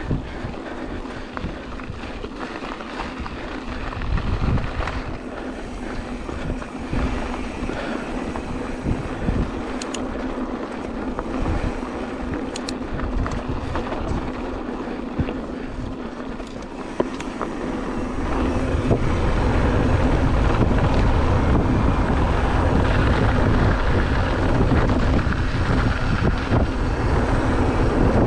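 Wind buffeting the microphone of a GoPro Hero 8 on a moving mountain bike, mixed with tyre-on-dirt noise and scattered clicks and rattles from the bike. The low wind rumble grows much louder and heavier after about eighteen seconds.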